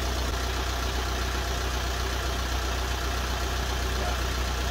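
VW Crafter's newly fitted 2.0 turbo-diesel engine idling steadily with the bonnet open.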